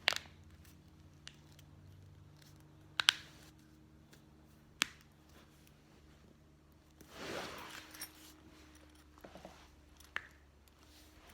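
Neck joints cracking: a few sharp, short pops spread over several seconds, one of them a quick double pop, with a soft rustle of movement about seven seconds in.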